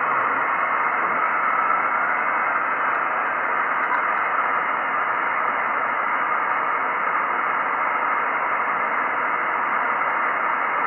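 Steady hiss from an Icom IC-9700 receiving in upper-sideband mode on FO-29's linear-transponder downlink, cut off above about 3 kHz by the sideband filter. No station is heard in the passband: just the transponder's and receiver's noise between CQ calls.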